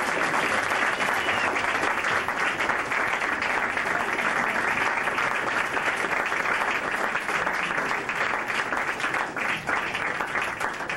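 An audience applauding, a dense, steady clapping that thins out near the end.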